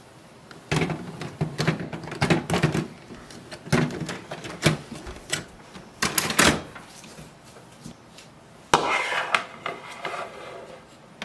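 Plastic clicks and knocks as a toner cartridge is slid and seated into an HP LaserJet M140we laser printer, then a couple of loud clacks as the printer's plastic top cover is shut, about six seconds in. Near the end, a second of rustling as the power cord is handled.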